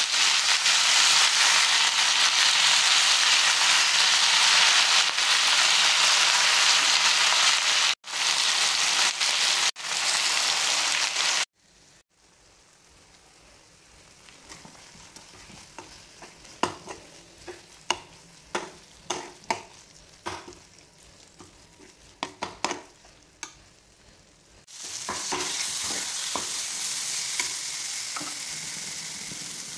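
Gongura (roselle) leaves sizzling loudly in hot oil in a pan, cut off abruptly twice. After that, quieter clicks and scrapes of a steel spoon stirring in the pan. A softer, steady sizzle returns near the end.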